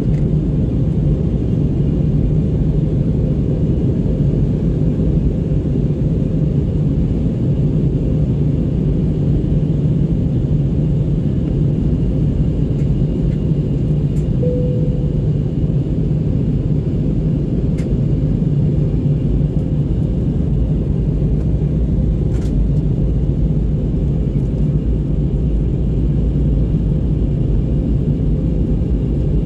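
Steady cabin noise inside an Airbus A321neo airliner in flight: a constant low rumble of engines and airflow with a faint steady hum, heard from a window seat.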